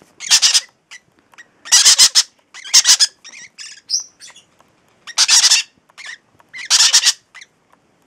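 Baby parrot chicks giving about six loud, harsh squawks, each well under a second, with softer chirps in between around the middle.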